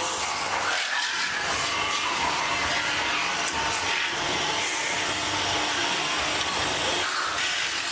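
Metal spinning lathe running, with a stainless steel blank spinning against a hand-held forming tool as it is pressed into a utensil shape: a steady mechanical whir and hiss with a high tone that shifts near the end.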